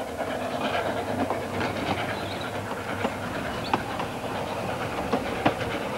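Steam train running along the line, a steady rumble with the wheels clicking irregularly over rail joints.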